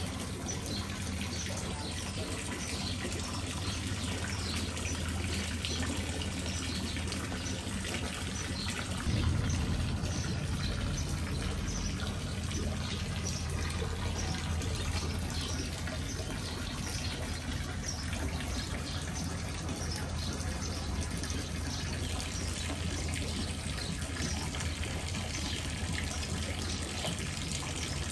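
Water splashing and trickling steadily into a garden koi pond from a pipe outlet, with a steady low hum underneath that gets a little louder about nine seconds in.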